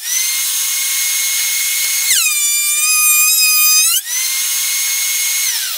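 Benchtop thickness planer running with a high whine. About two seconds in the pitch drops as a walnut and red oak board feeds through and the cutterhead takes its cut, and it rises back to full speed near four seconds when the board comes out. Near the end the motor is switched off and winds down.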